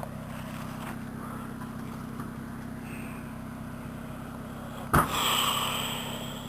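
Off-road 4x4's engine running steadily at low revs. About five seconds in there is a sharp knock, followed by a short rushing hiss that fades away.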